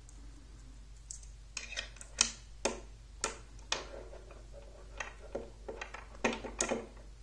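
Magnetic rods snapping onto steel balls and knocking against each other: a run of sharp metallic clicks at irregular spacing, starting about a second in, with a cluster near the end.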